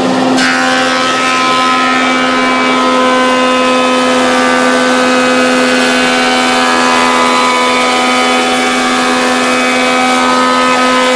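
Jet thickness planer running with a steady hum. About half a second in, the loud cutting noise of its knives planing a board joins the hum and continues as the board feeds through.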